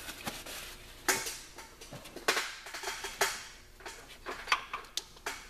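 Metal tools and parts clinking and clanking during work on engine belt pulleys: a handful of sharp, uneven knocks with short pauses between them.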